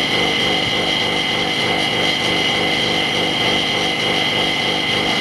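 A small motor running steadily with a constant drone and two steady high whines.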